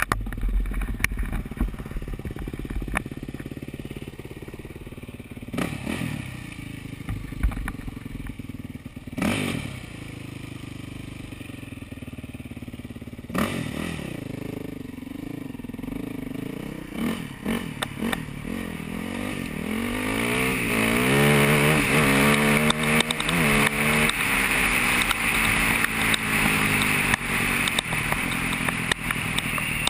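Yamaha YZ400F dirt bike's four-stroke single-cylinder engine running, with a few short throttle blips in the first half, then revs rising and falling as the bike pulls away. It gets louder from about twenty seconds in as the bike is ridden along a gravel trail, with clattering and scraping from the ride.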